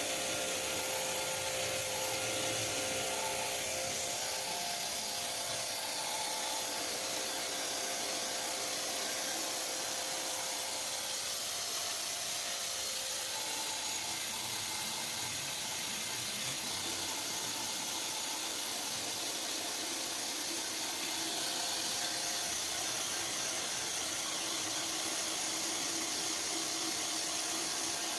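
Kärcher K5.20 pressure washer with a wet-sandblasting lance running, its jet of water and sand hissing steadily against painted sheet metal as it strips oil paint and varnish down to bare metal.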